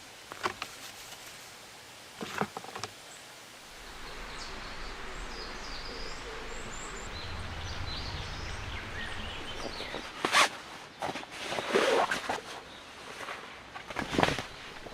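Birds calling outdoors over a low steady rumble, with knocks and rustling from gear being handled, loudest in the last few seconds.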